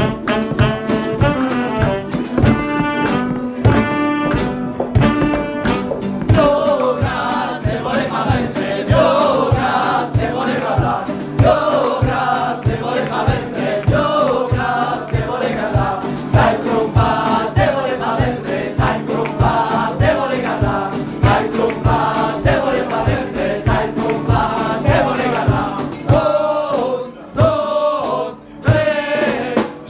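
Live band music. Two saxophones play a tune over a steady beat, then about six seconds in a group of voices takes over, singing together loudly over the same beat.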